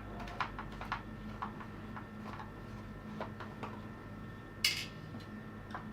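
A screwdriver backing small screws out of an Amiga 500 keyboard's plastic frame: scattered light clicks and ticks, with one sharper click near the end, over a steady low hum.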